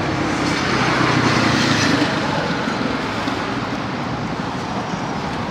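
Steady city road traffic noise, swelling a little about one to two seconds in.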